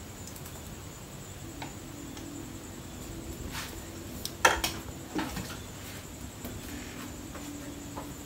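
Knocks and clicks of a metal spoon and a plastic cup being handled, the loudest about halfway through, over a low steady hum.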